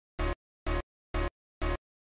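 Music cut into short, evenly spaced bursts about twice a second, with dead silence between each burst.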